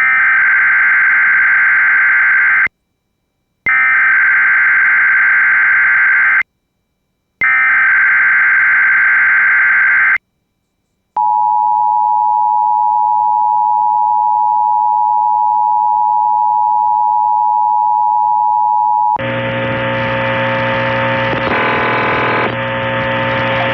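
Emergency Alert System SAME header: three bursts of raspy digital data tones, each about three seconds long with a second of silence between them. Then comes the two-tone EAS attention signal, held steady for about eight seconds. After it, a different steady sound with several pitches takes over for the last few seconds.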